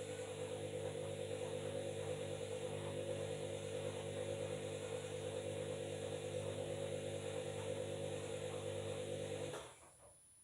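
Washing machine running with a steady motor hum, cut off abruptly near the end.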